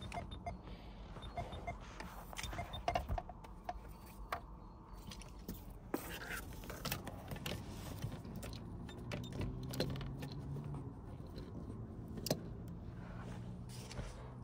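Handling noises inside a car: scattered clicks, taps and rustles as the door frame, bags and a laptop are touched and moved. A faint low hum rises for a couple of seconds about nine seconds in.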